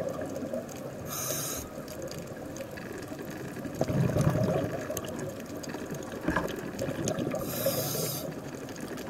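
Underwater sound of a scuba diver breathing through a regulator. Short hissing inhalations come about a second in and again near the end, with a burst of exhaled bubbles burbling about four seconds in, over a steady watery rumble.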